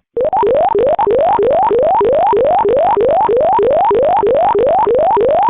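Fire dispatch alert tone over a scanner radio: a rising electronic whoop repeated about three times a second, the alert that precedes a dispatch announcement.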